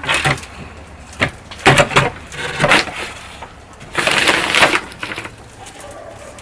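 Dry corn stalks and husks crunching and rustling in about five short bursts, the longest about four seconds in.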